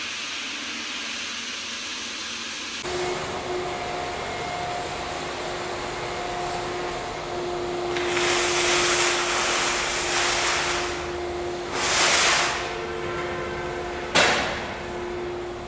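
Hissing room noise with a steady hum, scuffing and handling noise, and one sharp knock near the end as the roller pole, tray or canister is set down on the concrete floor.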